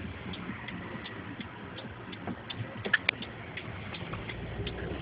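Car's indicator ticking steadily, about three ticks a second, over a low hum, with one louder click about three seconds in.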